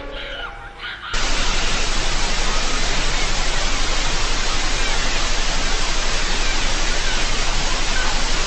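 Loud, steady static hiss, like white noise, that cuts in suddenly about a second in.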